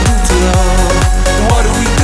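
Background electronic dance music with a steady kick-drum beat, about two beats a second, and a synth melody.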